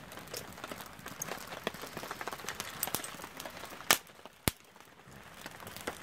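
Wood campfire crackling with scattered small snaps, and two loud sharp pops about half a second apart around four seconds in.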